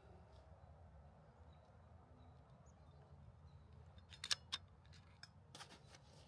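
Near silence broken about four seconds in by a quick cluster of sharp clicks: a shot from a shrouded, regulated .22 RAW Micro Hunter PCP air rifle. A fainter few clicks follow near the end.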